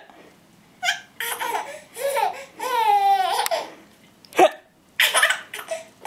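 A young child hiccuping, laughing and babbling between the hiccups, with short sharp hiccups shortly before one second in and about four and a half seconds in, and one drawn-out falling vocal note in the middle.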